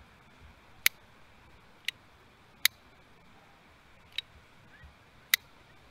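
Five sharp, small clicks at uneven intervals of about a second, made by a small object being fiddled with in a hand.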